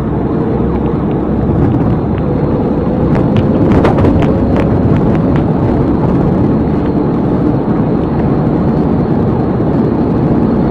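Steady road, wind and engine noise inside a patrol car travelling at highway speed. A faint tone creeps slowly up in pitch, and a cluster of sharp clicks comes about three to five seconds in.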